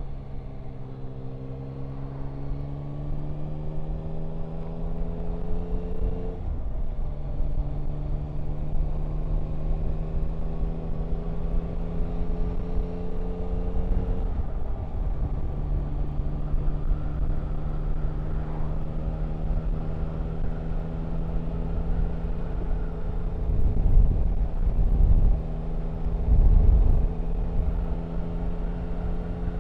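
Yamaha Tracer 9 GT's three-cylinder engine accelerating away through the gears. Its pitch climbs, then drops at upshifts about six and fourteen seconds in, and after that it runs at a nearly steady pitch. A low rumble swells twice near the end.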